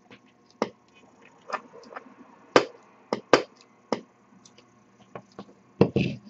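Irregular clicks and knocks from handling a CB radio microphone and the radio set: the microphone with its coiled cord is moved and put down, and the front of the Galaxy 2 CB radio is touched and its controls worked. About a dozen short clicks, a few louder knocks among them.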